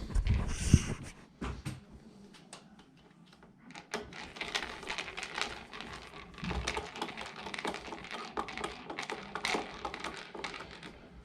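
Light clicking and tapping of a screwdriver driving screws back into an iMac's casing, with a few heavier knocks of handling in the first second and a fast, uneven run of small clicks from about four seconds in.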